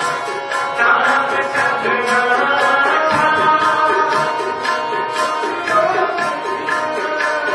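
Harmonium chords with tabla drumming, playing kirtan.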